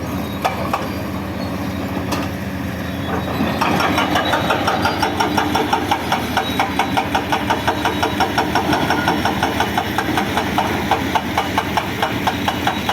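Hydraulic hammer on a Cat 336DL excavator striking in a fast, even rhythm over the running diesel engine. The blows get louder about three and a half seconds in.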